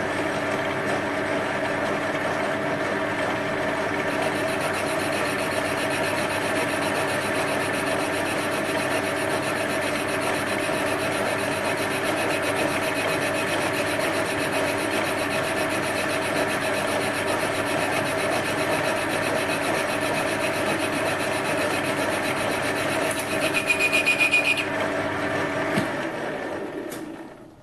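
Metal lathe running steadily while an indexable carbide boring bar takes a fine-feed cut inside a steel bore. A brief louder high-pitched ringing comes a little after 23 seconds, and near the end the lathe winds down and stops.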